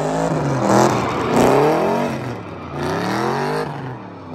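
Car engine revving hard, its pitch rising and falling several times, with tires squealing as the sedan spins donuts on the parking-lot asphalt.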